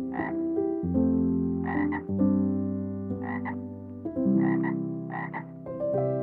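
An animal's short calls, five of them, roughly a second apart, some doubled, heard over slow background music with held notes.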